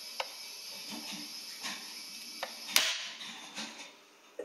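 Red oak glue-joint test piece under load in a pneumatic press: a few faint ticks, then one loud sharp crack nearly three seconds in as the glue joint breaks.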